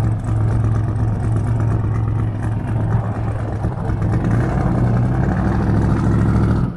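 Twin-turbo LSX V8 engine in a Buick Skylark running steadily and loud as the car rolls slowly, with a deep, even engine note.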